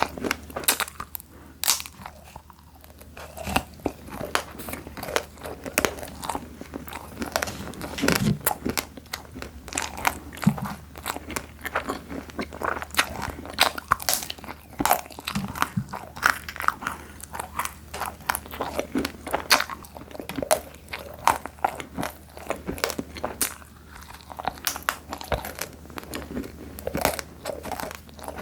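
A person biting and chewing crunchy snacks, crisp candy and fried nacho chips: a steady run of sharp, crackling crunches, several a second.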